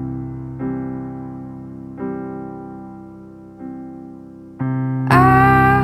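Slow piano chords, each struck and left to fade, about one every second or so as a song's intro; about five seconds in, a louder sustained melody line with sliding pitch comes in over them.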